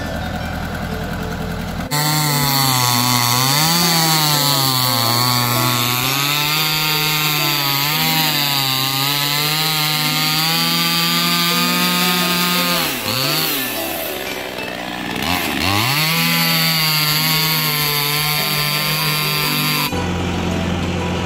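Small top-handle petrol chainsaw running at high revs as it cuts through a round wooden post, its pitch wavering with the cut and dipping twice before revving back up. Before it, a tractor engine runs steadily for about two seconds.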